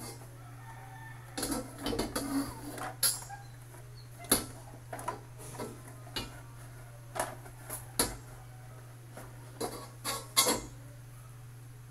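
Carbon steel wok knocking and scraping against the gas stove's burner grate as it is tilted and set down, a dozen or so scattered metal clanks over a steady low hum.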